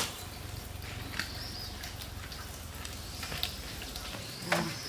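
Quiet outdoor background with a few scattered light clicks and knocks, spaced a second or two apart, and a low rumble that stops about four seconds in.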